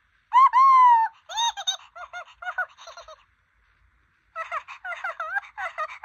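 Furby Furbling toy's electronic voice babbling in high-pitched, sing-song Furbish: a long gliding call, a run of short chirps, a pause of about a second, then another quick run of chirps.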